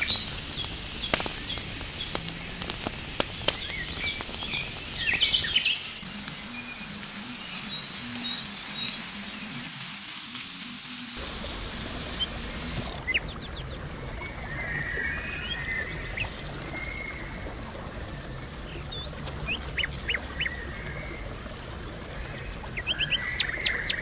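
Chicken and vegetables sizzling in a saç pan over a crackling wood fire, with scattered sharp pops, while birds chirp. The hissing drops away suddenly about halfway through and the birdsong carries on.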